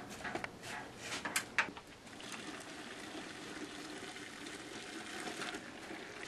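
A few knocks in the first couple of seconds, then boiling water pouring steadily into a plastic cooler.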